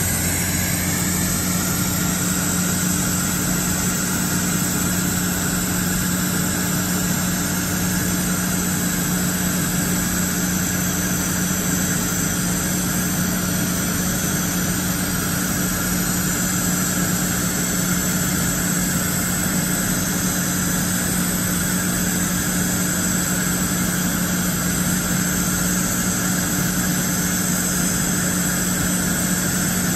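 2015 DMG Mori DMU 125 monoBLOCK 5-axis machining center running with a steady low hum and drone, its table traversing slowly under a dial test indicator during a table flatness check.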